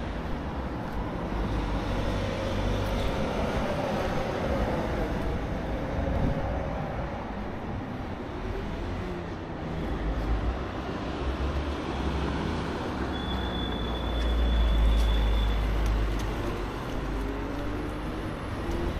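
Road traffic noise: vehicle engines and tyre rumble, swelling louder about three-quarters of the way through, with a vehicle's engine rising in pitch near the end.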